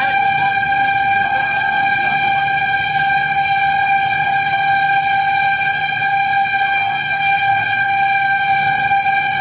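A fire truck's warning device sounds one unwavering horn-like tone throughout, heard from inside the cab over the low rumble of the truck's engine while it drives to a fire call.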